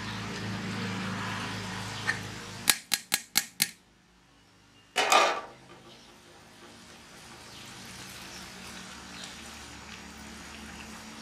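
Five quick sharp metal knocks, a metal skimming ladle tapped against the rim of a large aluminium cooking pot, followed a little over a second later by a short, louder metallic clatter.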